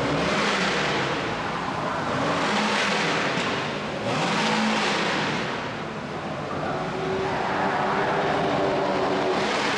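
Several racing cars passing one after another on a circuit. Each engine note swells and fades in turn, in waves every couple of seconds.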